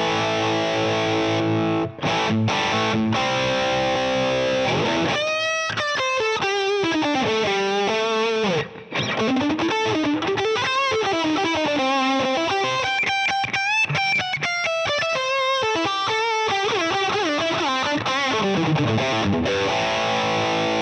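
Distorted electric guitar played through a Fractal Axe-Fx III modelling a Plexi amp, boosted by a Tube Screamer drive block for a lead sound. It opens with held chords for about five seconds, then turns into a lead solo of fast runs and bent notes with vibrato, and ends on a held chord.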